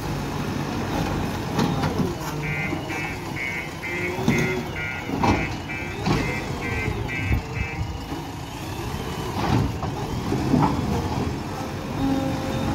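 JCB 3DX backhoe loader's diesel engine running under load as it pushes dry soil with its front bucket. From about two seconds in to about eight seconds in, its reversing alarm beeps steadily, about two beeps a second, as the machine backs up.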